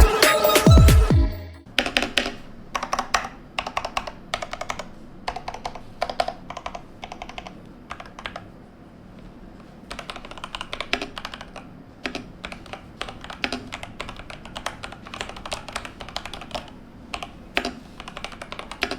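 Electronic music glides down and cuts off within the first two seconds. Then comes continuous typing on an IQUNIX OG80 mechanical keyboard, a dense irregular run of key clacks.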